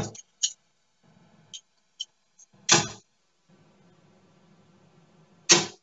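Three darts thudding into a Winmau Blade 5 bristle dartboard one after another, about 2.7 seconds apart, with faint clicks in between.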